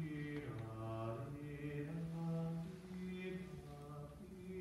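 A man's voice singing a slow, smooth melody in long held notes, gliding from pitch to pitch without breaks.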